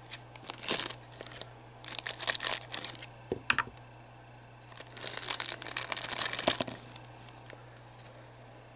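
Thin clear plastic bag crinkling and tearing as a hand works it open to take out a small pre-painted plastic miniature. It comes in several bursts, the longest from about five to nearly seven seconds in.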